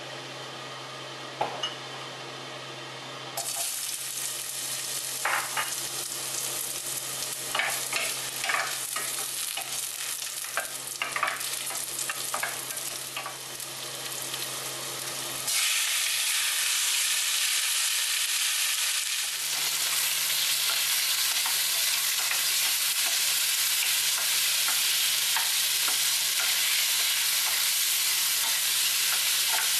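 Ginger slices frying in hot sesame oil in a stainless steel saucepan, a sizzle with scattered crackles and pops. From about fifteen seconds in, a louder, even sizzle as chicken pieces fry and are stirred with a wooden spoon. A low steady hum runs under it.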